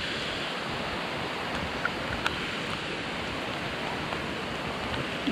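Steady rain falling, with a few faint ticks of drops.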